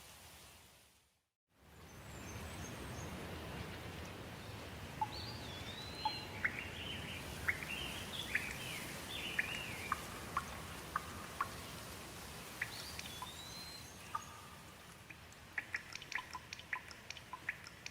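Steady rain with birds singing over it: short whistled calls that slide up and down, after the sound drops out briefly about a second in. Near the end the birds stop and a quick run of sharp water drips patters close by.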